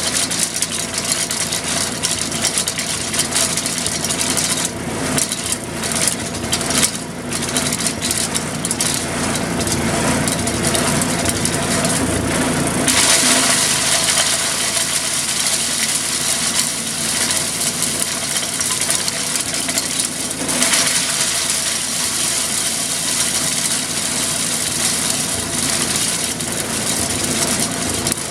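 Lazy Boy chipper/shredder's 5 hp Briggs & Stratton engine running, with brush being fed in and chipped: crackling and crunching of branches, and a sudden louder, harsher shredding noise about 13 seconds in that eases briefly near 20 seconds.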